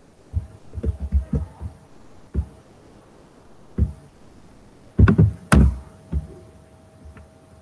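Computer keyboard and mouse being worked: a quick run of soft knocks in the first two seconds, single knocks later, and a louder pair of thumps about five seconds in.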